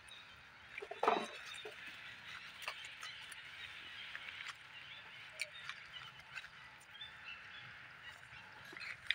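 Forest background with a steady high-pitched hiss, broken about a second in by one short, loud animal call that drops in pitch, with scattered faint clicks and rustles in the leaf litter.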